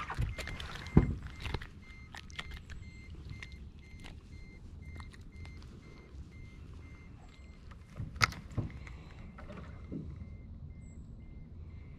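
Knocks and handling noises as a crappie is landed and held in a small fishing boat, the loudest knock about a second in and two more a little after eight seconds in, over a steady low rumble. A faint, rapid electronic beeping repeats through most of it.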